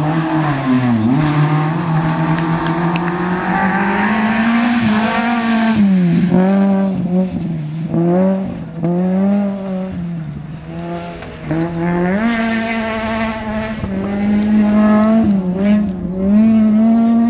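Rally car engine running hard at high revs, dropping and climbing again several times as it lifts and changes gear through the bends.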